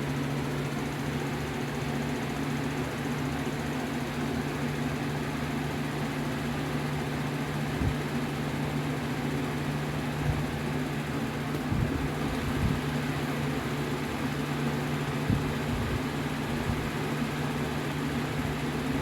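Lasko Power Plus box fan running with a steady hum and rush of air, with a few faint scattered ticks. Its blade is scraping and the fan shakes a little, a fault the owner says is common on modern box fans.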